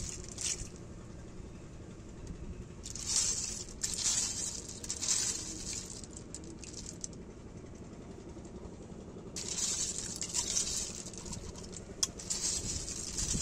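Snail shells rattling and clicking against one another as a hand rakes through a heap of freshwater snails, in two longer spells of clatter with a sharp click near the end.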